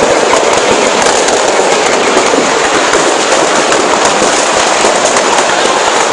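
Stock of fireworks and firecrackers in a burning shop going off together in a continuous, dense crackle of rapid small pops, with no single big bang standing out.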